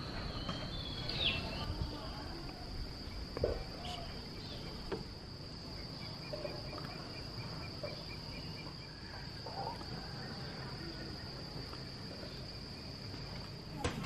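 Steady high-pitched insect drone, with a few short chirps over it.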